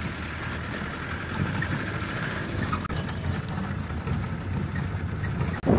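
Safari jeep driving on a dirt track, its engine running steadily under road and wind noise, heard from inside the moving vehicle.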